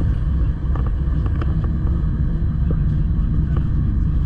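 Gornergrat electric rack railway train running, a steady low rumble with a few faint clicks and squeaks scattered through it.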